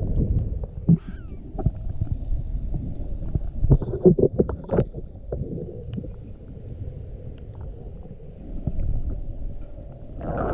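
Muffled underwater sound of water moving past a diver's camera housing, low and steady, with a cluster of sharp knocks and clicks about four seconds in.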